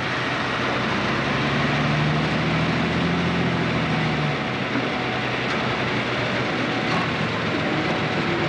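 Pro Stock pulling tractor's turbocharged diesel engine running wide open under heavy load as it drags a weight-transfer sled; a loud, steady engine noise with a low note that holds through the first half.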